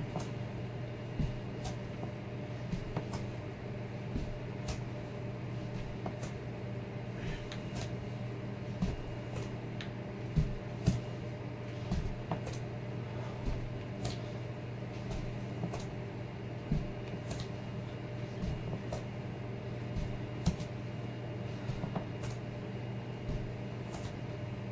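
Steady low hum with irregular soft taps and knocks from a weighted foot touching down on an exercise mat during standing hip abductions with ankle weights; two knocks a little after ten seconds in are louder.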